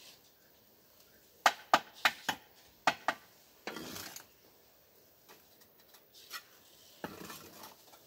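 Bricklaying with hollow clay bricks: a quick run of about six sharp knocks on the bricks, then mortar scraped twice with a trowel.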